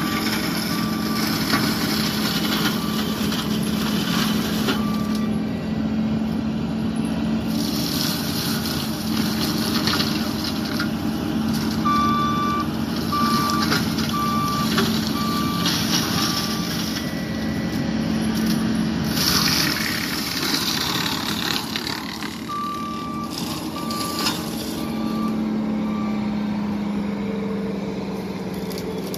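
John Deere 333G compact track loader's diesel engine running steadily at working speed, driving an MH60C mulching head. Its backup alarm beeps in three spells of about one beep a second as it reverses, and the head grinds into brush in two loud surges.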